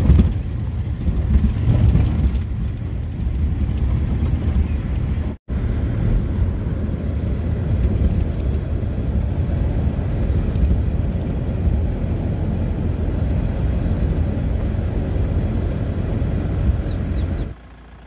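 Car driving along a road, a steady low rumble of engine and tyres. The sound cuts out for an instant about five seconds in and drops away just before the end.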